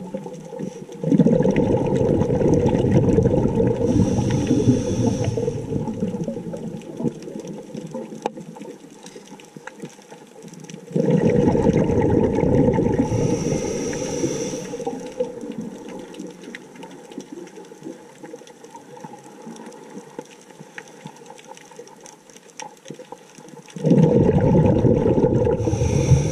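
Scuba diver breathing through a regulator, recorded underwater: three bursts of exhaled bubbles about ten to twelve seconds apart, each starting suddenly and fading over several seconds, with a brief high hiss partway through the first two.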